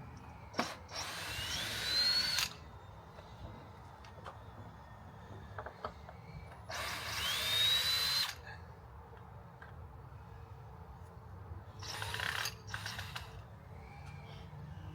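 Power drill running in three short bursts, its whine rising as the motor spins up and then holding, driving screws into the timber of a bed frame.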